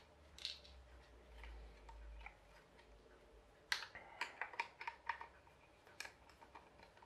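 Faint clicks and taps of a screwdriver and small plastic and metal parts being handled while a hair dryer is taken apart. About four seconds in comes a quick run of sharper, slightly ringing clicks as the screwdriver works in the motor and fan housing, and there is a short low rumble around the first two seconds.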